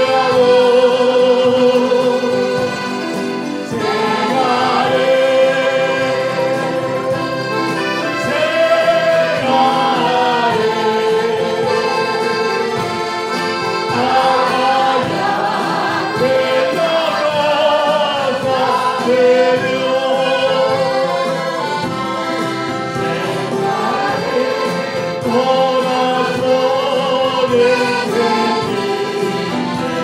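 Voices sing a Spanish-language hymn in held, even phrases, accompanied by accordion and strummed mandolins.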